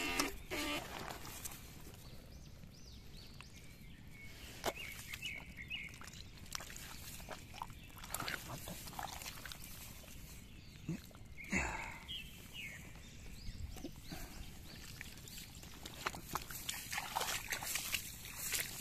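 Wet mud squelching and scraping with scattered knocks and rustles as a paddy bank is dug out by hand, loudest briefly about a third of the way in and again near the middle. A buzzing electric eel-shocker tone cuts off right at the start.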